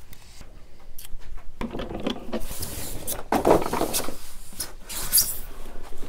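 A Setpower RV45s metal-cased 12-volt fridge being handled, lifted and turned around on its cardboard packaging base: scraping and rustling with scattered clicks and knocks, loudest in the second half.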